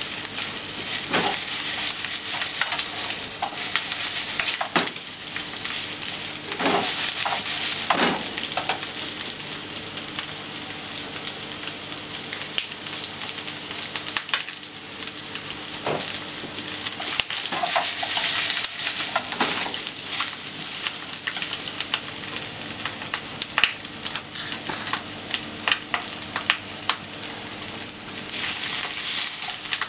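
Chicken thigh pieces frying in a nonstick frying pan: a steady crackling sizzle, with wooden chopsticks stirring and turning the pieces, clicking and scraping against the pan now and then.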